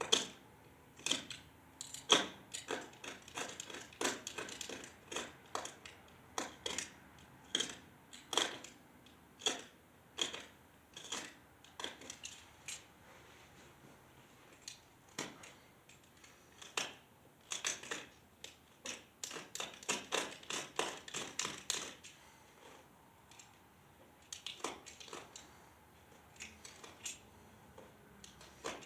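Irregular sharp metallic clicks and taps of hand tools and hardware while fastening a pew bracket to concrete with wedge anchors, with a dense run of quick clicks about two-thirds of the way through.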